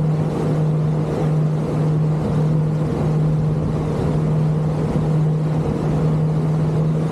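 Motorboat engine running steadily under way, a constant hum over a rush of wind and water.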